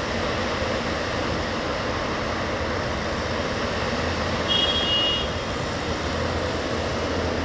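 Backhoe loader's diesel engine running steadily, with one short high beep about four and a half seconds in.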